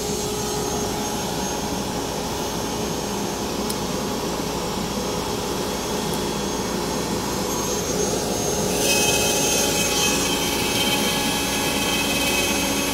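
The Hitachi router spindle of a 4x8 CNC router runs together with its dust collector as a steady whine and rush of air. About nine seconds in, a louder, brighter hiss with a high whine joins in and holds.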